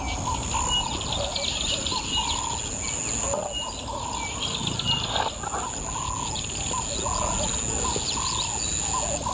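Wild birds chirping, with short calls repeating about every half second, over a steady high-pitched hiss.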